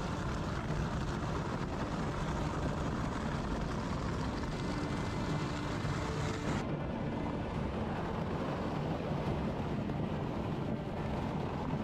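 Snow Dog tracked power unit running steadily as it drives across lake ice, its small engine and track noise carrying at an even level; the sound turns duller about seven seconds in.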